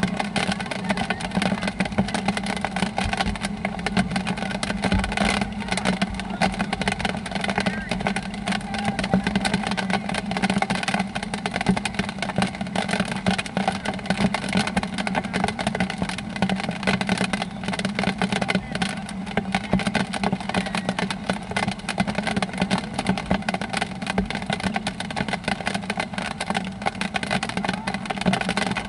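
Rain pattering close to the microphone, a steady run of irregular small ticks over a constant noisy rumble.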